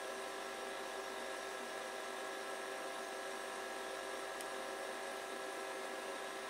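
Steady background hum with several fixed tones over a low hiss, like room tone from a running appliance or mains hum. There is one faint click about four and a half seconds in.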